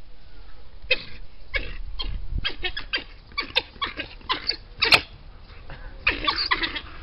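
A pack of African wild dogs calling in many short, sharp, high-pitched yelps and chirps, excited at feeding time. The loudest call comes about five seconds in, and the calls crowd together near the end.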